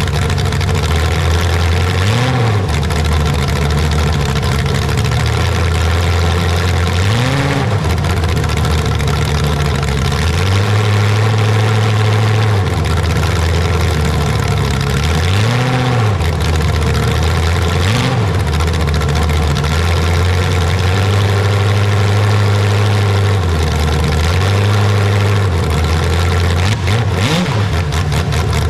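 A large engine idling with a steady low note, briefly revved and let back down several times.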